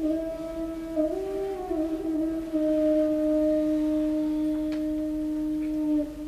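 A slow, wordless hummed tune: a few short notes, then one long held note that stops about six seconds in.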